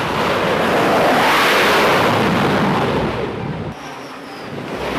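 F/A-18 Super Hornet's twin F414 turbofan engines at full power for a carrier catapult launch: loud jet noise that swells and then eases. About three and a half seconds in it drops suddenly to a quieter jet rush with a faint, slightly falling high whine.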